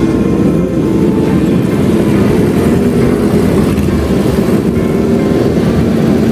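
Several old motorcycle engines running steadily together, their exhaust notes overlapping.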